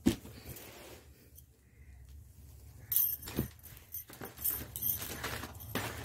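Gift packaging being handled: crinkling plastic and cloth in several short, sharp rustles in the second half, after a quieter start.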